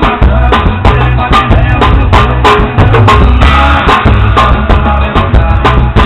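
Drum kit played with a pair of wooden skewers in place of drumsticks, keeping a steady beat over recorded music with bass and other pitched instruments.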